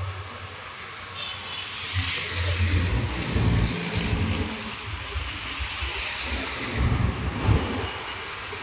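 City road traffic heard while moving along with it: a low, uneven rumble of engines and passing vehicles that swells about two seconds in and again near the end.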